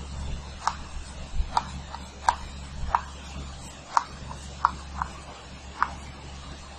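Chalk tapping and scraping on a blackboard as numbers are written, a string of sharp, irregularly spaced taps over a steady low hum.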